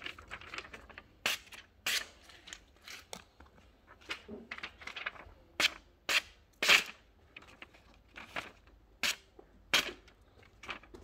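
Irregular sharp clacks and clinks of steel knives, cleavers and skewers being handled, with rustling of the leather roll case between them, about ten knocks in all, the loudest near the middle.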